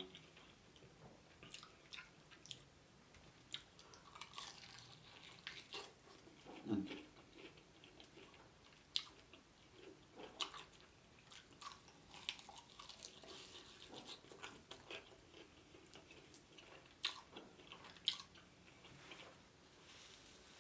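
Faint chewing and mouth sounds close to the microphone, with scattered soft clicks and smacks.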